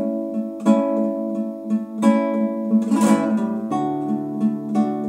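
Solo acoustic guitar: chords strummed and left to ring, a fresh stroke every second or so, with a change of chord and bass note about three-quarters of the way through.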